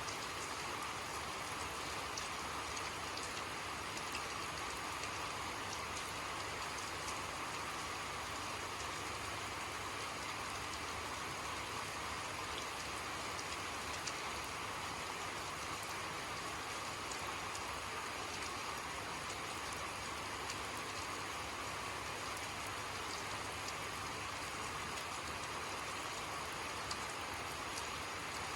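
Steady rain falling, with a constant hiss and scattered drop ticks throughout.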